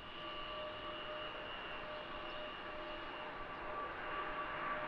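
De Havilland Canada Dash 8-400 twin turboprop on final approach, its propellers and engines giving a steady droning hum with several whining tones that slowly pulse in and out. It grows slightly louder near the end as the aircraft comes closer.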